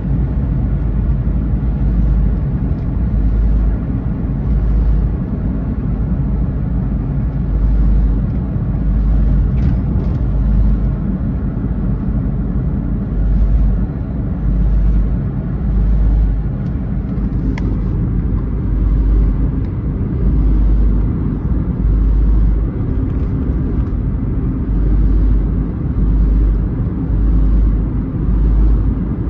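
Smart Fortwo being driven: a steady, heavy rumble of engine and road noise with strong low bass. In the second half the noise swells and fades regularly, about once a second.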